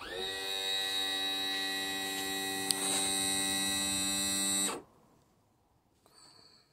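Small electric motor spinning up with a brief rise in pitch, running with a steady hum for about five seconds, then stopping abruptly; a much fainter short burst follows near the end.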